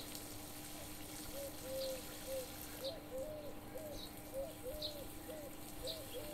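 Birds calling in a garden: a run of short, low cooing notes about twice a second and a faint high chirp about once a second, over the soft hiss of water spraying from a garden hose.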